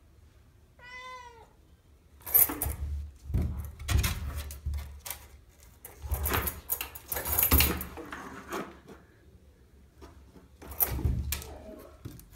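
A domestic cat meows once, briefly, then jumps repeatedly at a door, with irregular thumps against the wood, claw scratches and a key rattling on its hanging holder.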